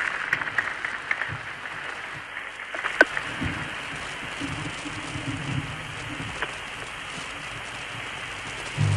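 Audience applause through the hiss and crackle of an old television recording, with faint held notes from an orchestra; near the end the orchestra starts to play.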